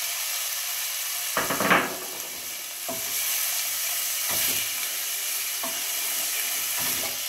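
Chopped onion sizzling in hot olive oil in a stainless steel pot, with a steady hiss. A wooden spoon scrapes and knocks against the pot several times as the onion is stirred; the loudest knock comes about a second and a half in.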